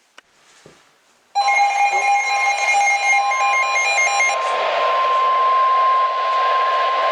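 Weather radio alert tone: a loud, steady, single-pitched alarm tone starts suddenly about a second and a half in, after a short silence, and holds. For its first three seconds a second, lower beeping alarm tone sounds with it, and a hiss joins after that.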